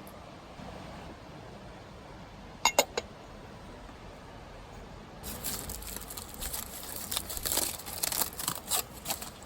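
Three quick, sharp clinks, then from about halfway a few seconds of dense crackling and crinkling, like something being unwrapped or handled.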